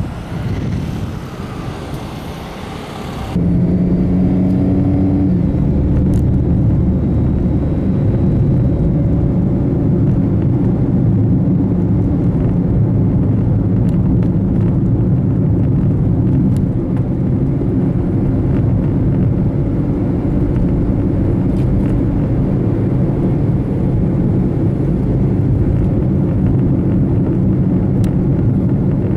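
Wind buffeting the microphone for about three seconds, then, after an abrupt cut, the steady low rumble of a car driving.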